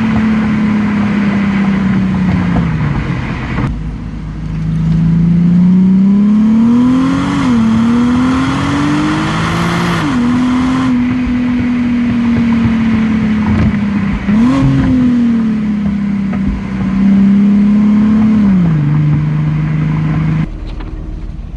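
Infiniti G37 sedan's 3.7-litre V6 through its stock exhaust, heard at the rear bumper while driving. The engine note climbs under throttle and drops sharply at each gear change, with stretches of steady cruising between. It cuts off abruptly near the end.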